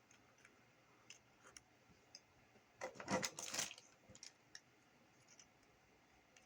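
Small metal hardware handled while fitting a BNC jack: a few light clicks and a brief scraping rub about three seconds in as the grounding lug and star washer are worked onto the jack.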